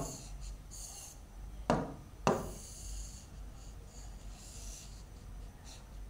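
Pen writing on the glass of an interactive display screen: faint scratchy strokes, with two sharp taps about half a second apart near two seconds in.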